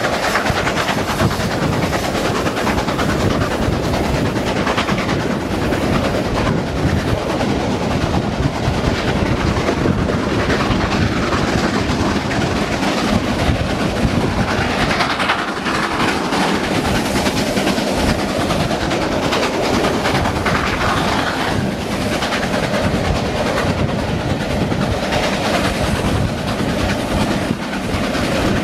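Two GWR Castle class 4-6-0 steam locomotives working hard up a steep bank, their exhaust beats mixed with the clatter of the coaches' wheels on the rail joints, heard from an open carriage window.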